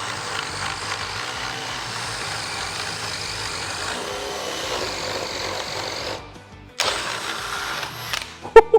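DeWalt DCD1007 18V brushless hammer drill in third speed, boring with a 38 mm spade bit at full power. It stops about six seconds in, runs again briefly a second later, and a few sharp knocks come near the end.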